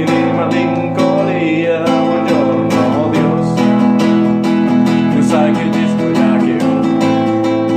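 Classical acoustic guitar strummed steadily in chords, with a man's voice singing over it.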